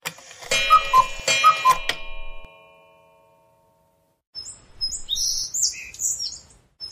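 Clock sound effect: a quick run of ticks and alternating tick-tock tones with a chime that rings out and fades over a couple of seconds. After a short gap, about four seconds in, birds start chirping in short, high, repeated calls.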